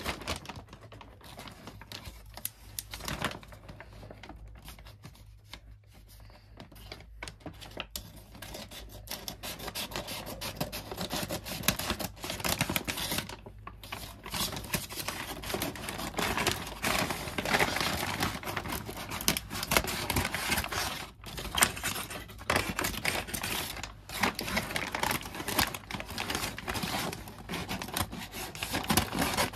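Scissors snipping through a brown paper mailer, with the stiff paper crinkling as it is handled. The cutting clicks are sparse at first and come thicker and louder from about a third of the way in.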